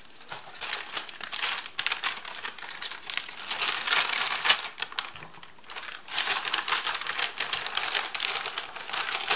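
Plastic bag of a flameless ration heater crinkling and crackling as it is opened and handled, in two spells with a short lull about five seconds in.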